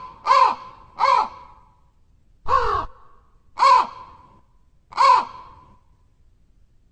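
Crow cawing: a quick run of three harsh caws, a longer caw about two and a half seconds in, then two more caws about a second apart.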